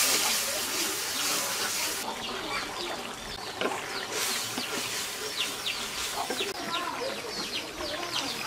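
Mutton, onion and spice masala sizzling hard in oil in an aluminium pan. About two seconds in, the sound changes to a thick curry bubbling, with many quick pops and splutters over a lower hiss.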